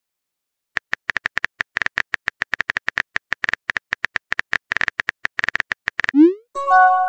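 Rapid phone-keyboard typing clicks, several a second, as a text message is typed out, then near the end a short rising swoosh and a ringing chime as the message is sent.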